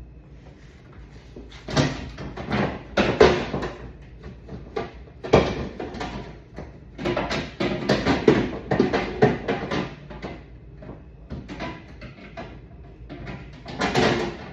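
Bursts of clattering and knocking as items are handled and set down in and around a refrigerator, with quieter gaps between them.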